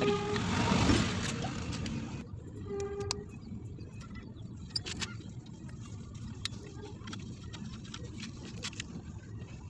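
A motor vehicle goes by for the first couple of seconds, then light metallic clicks and clinks as the Vario 125's drive pulley fan and washer are slid and seated onto the crankshaft.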